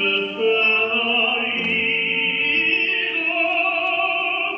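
Operatic singing with orchestra: a trained voice holding long notes with a wide vibrato over orchestral accompaniment.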